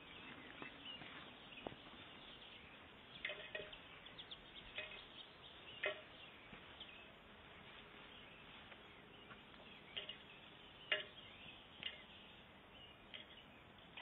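A bird's beak pecking at a car wheel, attacking its own reflection: faint, irregular sharp taps, some in quick pairs or clusters, a second or more apart, over a steady low hiss.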